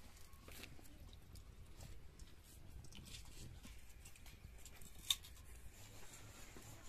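Faint crackling of a wood fire in a mud stove: scattered small ticks over a low hum, with one sharper crack about five seconds in.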